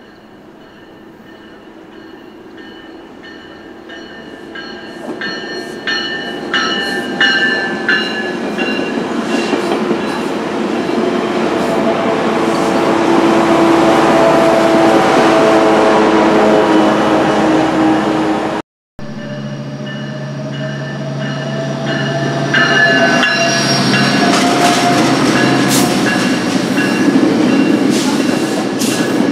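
Metrolink commuter trains on the rails, one after the other. The first draws near and passes, its diesel locomotive and wheels growing steadily louder with clicks from the rails. After a sudden cut about two-thirds in, a second train runs loud and steady.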